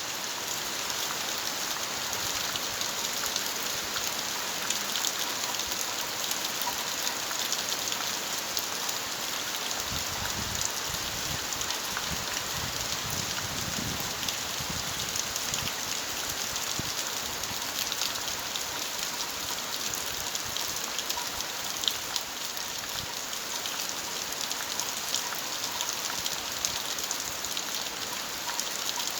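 Steady rain falling around a house, an even hiss with many fine drop ticks. A low rumble joins for several seconds in the middle.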